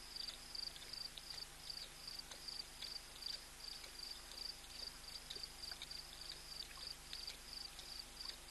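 A night insect chirping steadily, about two high chirps a second, with faint irregular lapping from a lion drinking at the water's edge.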